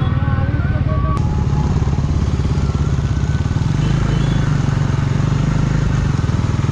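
KTM Duke 390's single-cylinder engine running steadily at low revs as the bike pulls off and rolls along slowly. A single short click about a second in.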